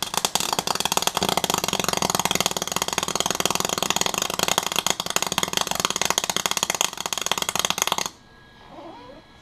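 Wire-feed (MIG) welder arc crackling steadily as it lays a weld, run without shielding gas, for about eight seconds before cutting off abruptly.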